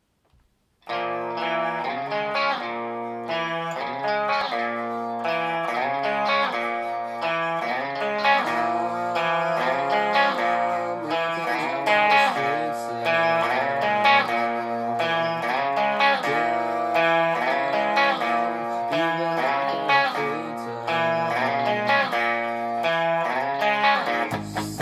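Electric guitar playing a riff of changing notes, starting about a second in; near the end the sound gets heavier, with lower notes and quicker strokes.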